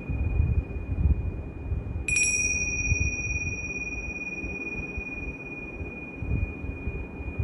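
Tingsha cymbals ringing with a steady high tone. About two seconds in they are struck together again: a bright clash whose higher overtones ring out and slowly fade while the main tone holds.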